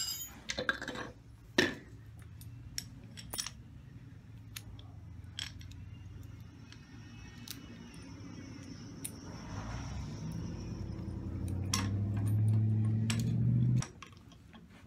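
Scattered metallic clinks from hand tools on a car's strut-and-spring assembly as its top nut is loosened. A low hum builds up over the last few seconds and cuts off suddenly near the end.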